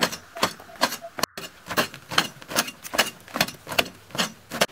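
A long-handled digging tool chopping into hard, dry packed earth in a steady rhythm, about two to three sharp strikes a second.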